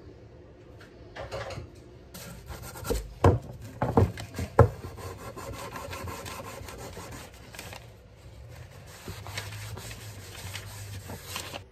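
Hand scraping and rubbing during the cleanup of a vintage draw knife, with several sharp knocks about three to five seconds in.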